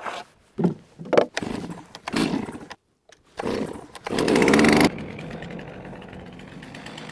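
Gas chainsaw starting up in short bursts, revving hard about four seconds in, then settling to a steady lower running speed.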